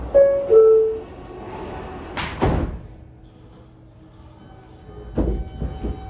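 R160A subway car's two-note door chime, a higher tone then a lower one, followed about two seconds in by the doors sliding shut with a loud thud. A few further knocks come from the train near the end.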